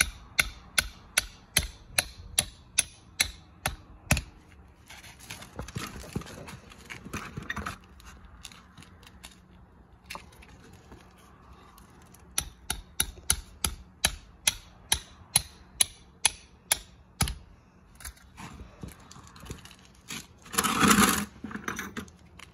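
Hammer driving steel spikes through plastic paver snap edge into the ground: runs of sharp strikes, about two a second, in the first few seconds and again around the middle, with softer scraping in between. A short, loud rattle comes near the end.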